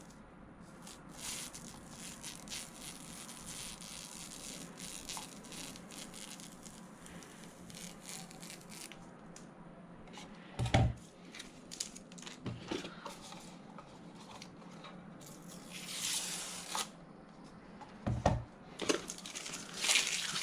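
Unboxing packaging being handled: rustling, crinkling and tearing of plastic and cardboard, with scattered small clicks and two knocks, the first about halfway through and the second near the end.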